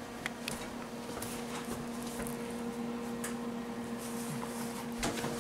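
Light clicks and taps as a baked pot pie in its metal pie tin is handled with a knitted oven mitt, over a steady hum. A louder knock comes near the end.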